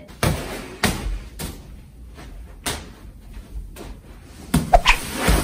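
Irregular dull thumps and knocks as big rolls of bubble wrap are moved about and set down on a carpeted floor.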